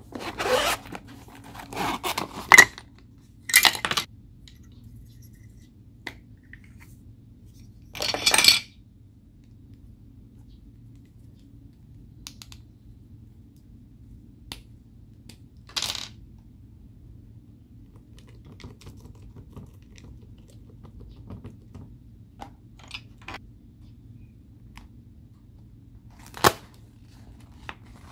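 Slime being handled by hand: a scattered series of short sticky crackles and clicks, several in the first few seconds, then single ones about eight, sixteen and twenty-six seconds in, over a low steady hum.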